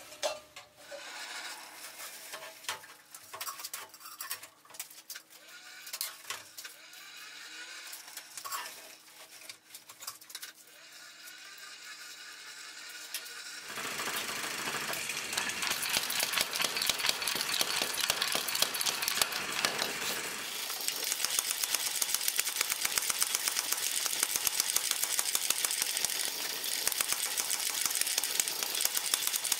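Light clinks and knocks of steel tools being handled. About halfway in, a mechanical power hammer starts striking white-hot steel in rapid, steady blows, forge welding heavy bar stock.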